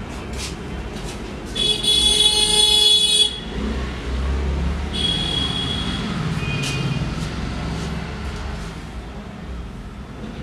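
A vehicle horn honks: one long blast of about a second and a half, two seconds in, then shorter honks a few seconds later, over steady low traffic rumble. Sharp clicks of haircutting scissors snip now and then.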